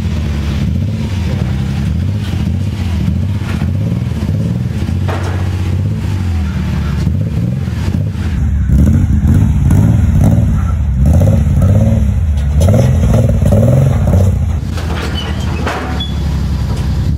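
Nissan 300ZX's naturally aspirated V6 running through an HKS aftermarket exhaust as the car creeps up the ramps onto a car trailer, its engine note rising and falling with small throttle changes.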